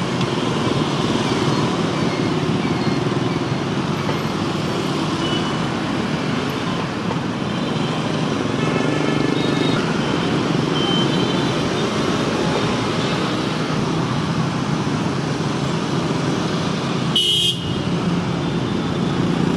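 Dense city street traffic: motorbikes, scooters and cars running past close by in a steady rumble, with a few short horn toots scattered through it.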